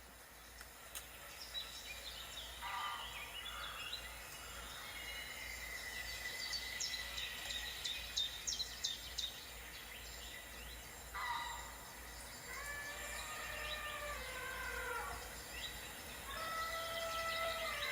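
Wild birds calling over one another. About halfway through come quick high chirps over a held call, and in the second half longer calls that step down in pitch.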